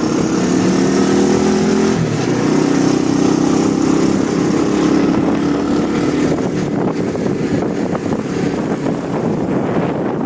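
A motor vehicle's engine running on the move, a steady hum that dips briefly about two seconds in and fades after about six seconds, leaving wind and road noise.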